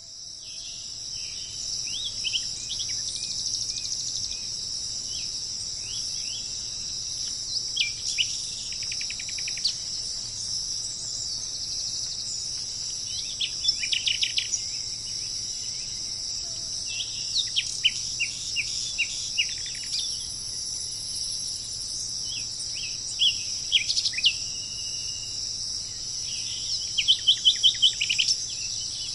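Small birds chirping in short calls and rapid trills that come in bursts, loudest near the end, over a constant high-pitched insect drone.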